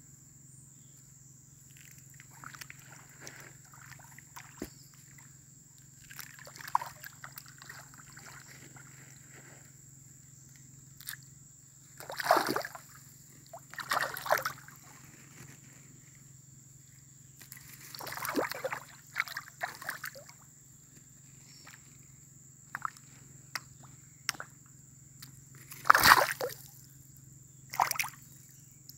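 Water splashing in a shallow stream as fish thrash at the surface: several separate bursts of splashing, the loudest a little before the end, with softer sloshing in the first few seconds.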